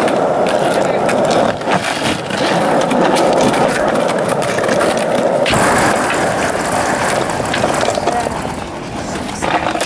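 Skateboard wheels rolling over rough concrete: a steady rolling rumble with many small clicks, and a single sharp knock about five and a half seconds in.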